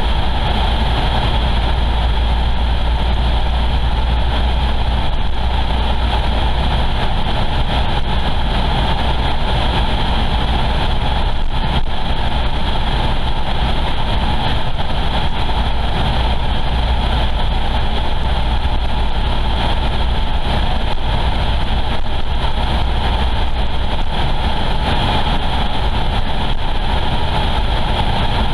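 A car driving steadily along a road, heard from inside the cabin: a constant low rumble of engine and tyres on the road surface that does not rise or fall.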